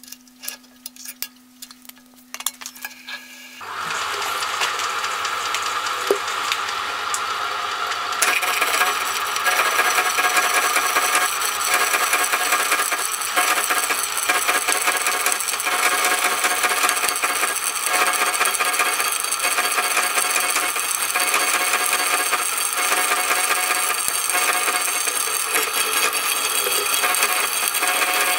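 Metallic clicks and clinks over a steady motor hum. A few seconds in, a milling machine starts running. From about eight seconds on, a slitting saw cuts steadily and loudly into an aluminium block, slitting it to make a flexible lap.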